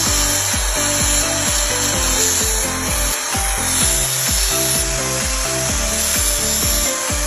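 Angle grinder grinding a steel ratchet wrench, a steady hissing scrape of metal on the wheel, mixed with background music that has a regular beat.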